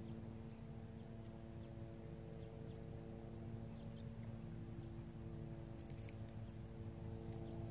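Faint outdoor background at a pond's edge: a steady low hum of several pitches over a low rumble, with a thin, high, steady tone above.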